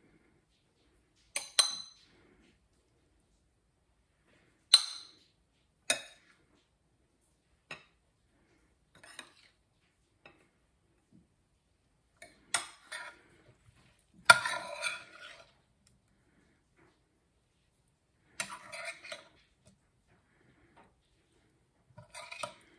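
Metal serving spoon and spatula clinking and scraping against ceramic bowls and a stainless steel skillet while food is dished out: short separate clatters every few seconds, the loudest about fourteen seconds in.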